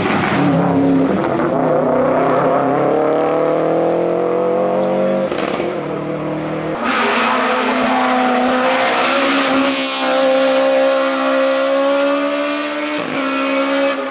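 Race-car engines at full throttle: a Subaru Impreza rally car accelerating past, its pitch climbing steadily for several seconds. Then a red Volkswagen hill-climb racer held at high revs, with a brief break for a gear change near the end.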